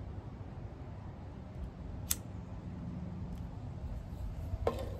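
A pocket lighter clicks sharply once about two seconds in while a tobacco pipe is being lit, with a couple of fainter ticks around it, over a steady low background rumble.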